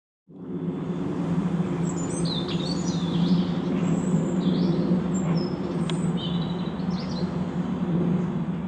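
A small engine, likely a lawnmower's, running at a steady drone, with birds chirping over it.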